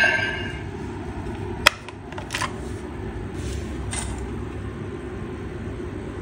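Plastic clicks from handling a DX Blazar Brace toy: one sharp click about a second and a half in and softer clicks after, over a steady low background hum. The brace's electronic eject sound effect dies away at the very start.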